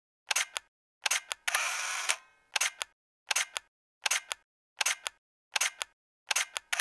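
Camera shutter sound effect: a crisp double click about every three quarters of a second, with dead silence between. Twice a click runs on into a short whir like a film advance.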